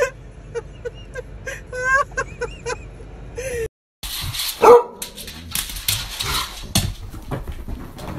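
Dog with a paper coffee cup over its muzzle giving a string of short, high whining yips, some rising in pitch. After a short break, another dog gives one loud, sharp cry, followed by scuffling and knocking as it scrambles about.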